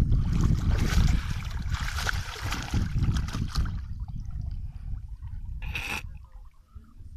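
Alaskan malamute puppy splashing as it wades through shallow pond water, with wind buffeting the microphone; the splashing stops about four seconds in as the dog stands still, and a brief noisy burst follows near the end.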